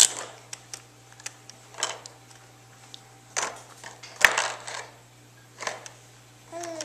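Hard plastic toys on a baby's bouncy activity chair clicking and rattling as a baby handles them: a few separate clacks and short rattles, the loudest about four seconds in.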